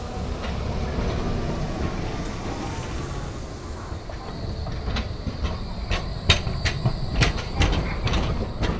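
Bombardier Primove battery-powered low-floor tram rolling past close by, a steady low rumble at first. From about five seconds in, a run of sharp clacks from its wheels on the rails.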